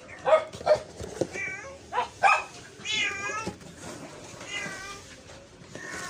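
A cat meowing repeatedly, about half a dozen short calls, the longest and most wavering one about three seconds in.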